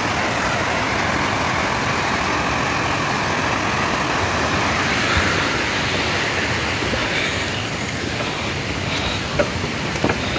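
Mountain stream rushing over rocks, a steady whooshing water noise.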